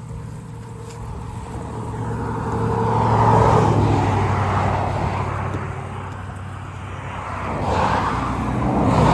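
ATV engines running, swelling louder and fading away twice: about three and a half seconds in and again near the end.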